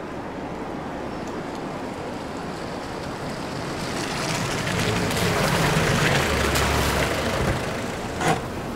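A vehicle approaching, its engine and tyre noise growing louder and peaking a couple of seconds before the end, then a short sharp splash as a tyre hits a muddy puddle.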